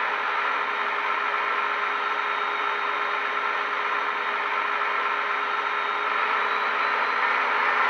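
Steady locomotive running sound from the ESU LokSound 5 decoder in a Roco BR 193 Vectron model, played through two small sugarcube speakers: a few steady hum tones over a noisy rush. It grows a little louder about six seconds in.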